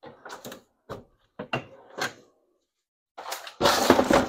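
Handling noises of tools and objects: a run of light clicks and knocks, then a louder clatter near the end.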